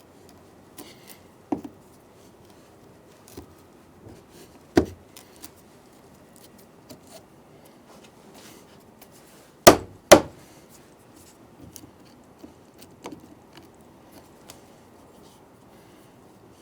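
Wood chisel chopping out a mortise in a wooden door jamb: light scraping and small taps, a few sharp knocks, and two loud strikes about half a second apart just before the middle.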